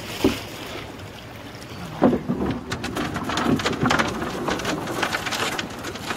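A wooden pole being worked against the bottom of a shallow river to push a boat upstream over a rapid: a light knock at the start, a sharp knock about two seconds in, then a run of quick splashes and drips of water off the pole and around the hull.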